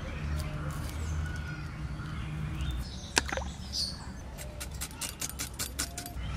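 Red onion being peeled and handled by hand: small clicks and crackles, with one sharp click about three seconds in and a quick run of clicks near the end. A few birds chirp faintly over a low rumble.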